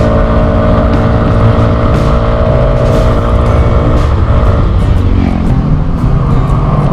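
Motor scooter riding along a road, its engine running at a steady pitch under a heavy, continuous rumble of wind on the microphone.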